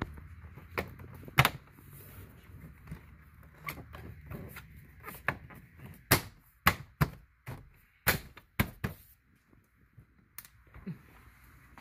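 Sharp plastic clicks and knocks from a VW Touareg's dashboard end trim panel being worked by hand. The loudest comes a little over a second in, then a quick run of snaps between about six and nine seconds in.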